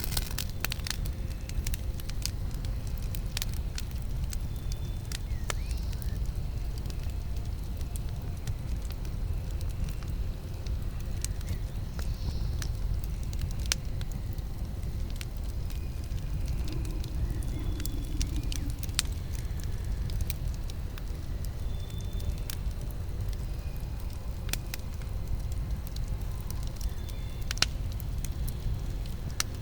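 Campfire burning: a steady low rumble with scattered sharp crackles and pops from the burning wood.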